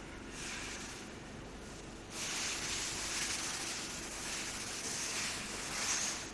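SW-S900 automatic stretch-film soap wrapping machine running with a steady hum. A loud hiss comes in about two seconds in and cuts off suddenly near the end.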